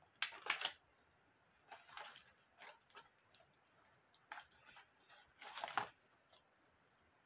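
A person eating fried chicken by hand: faint short bursts of chewing and mouth clicks as meat is pulled off the bone and eaten, about five bursts, the loudest right at the start.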